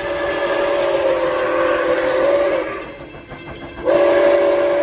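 Steam locomotive whistle blowing a chord of steady tones, over a hiss. It cuts off about two and a half seconds in and sounds again a second later.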